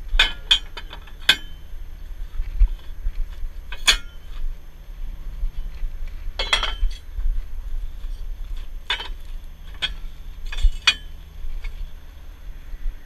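Steel tow forks and the underlift crossbar of a heavy-duty wrecker being handled: sharp metal clinks and clanks, a few quick ones at the start and then one every two or three seconds, over a low steady rumble.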